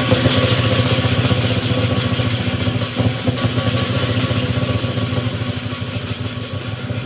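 Lion dance drum played in a fast, continuous roll, with steady ringing tones over it.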